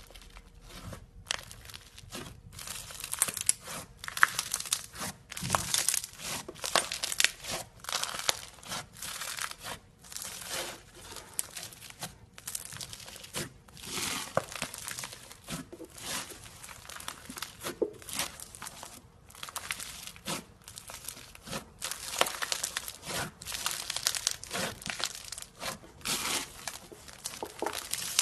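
Slime being squeezed and worked by hand, giving a dense, irregular run of crackles and pops throughout.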